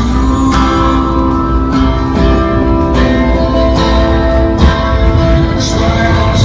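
Street busker's acoustic guitar playing through a small amplifier, chords strummed and left ringing, with a new chord about every second, over a steady low rumble.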